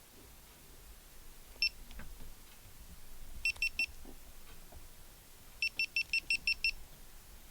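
GoPro Hero4 Silver camera beeping: one short beep, then a quick run of three, then a run of seven. Seven beeps in a row is the Hero4's power-off signal. Faint handling clicks come in between.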